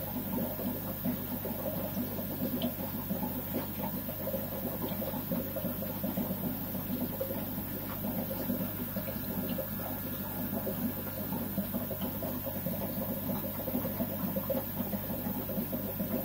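Aquarium equipment running steadily: water bubbling and trickling over a low electric hum from the tank's pump.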